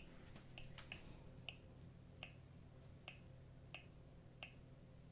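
Faint, short ticks repeating a little over once a second, over a steady low electrical hum.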